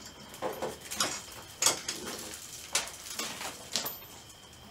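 Irregular sharp knocks, clicks and scrapes, about half a dozen, of car interior trim and parts being worked loose and handled.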